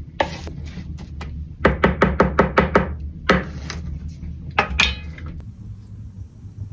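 Cookware clattering on a small wood stove: a quick run of about eight sharp knocks in the middle, with a few single knocks before and after.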